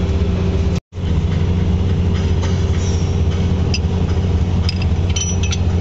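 An engine running steadily nearby, a low even drone, broken by a brief dropout about a second in. A few light clicks and taps come in the second half.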